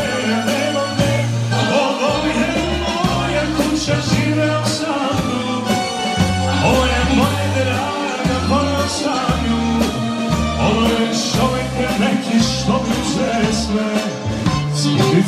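Live band playing an upbeat dance tune: saxophone over a keyboard with a repeating bass line and a steady beat.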